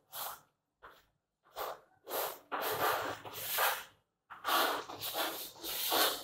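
Chalk scratching on a blackboard as lines and letters are drawn: a few short strokes, then two longer stretches of scraping.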